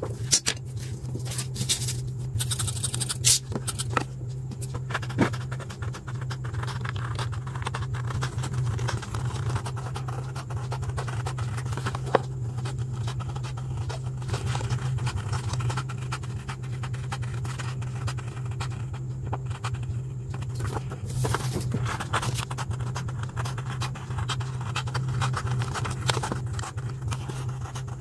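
Paper scissors cutting through a sheet of paper, with repeated snips and the scrape of the blades, plus paper rustling and handling clicks that are busiest in the first few seconds. A steady low hum runs underneath.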